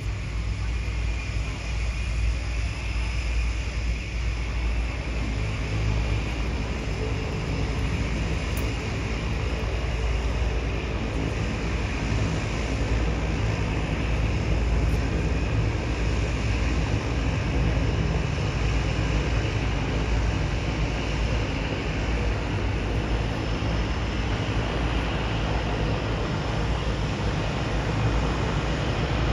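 Single-engine floatplane's propeller engine running on final approach, growing slowly louder as it descends toward the water to land, over a steady low rumble.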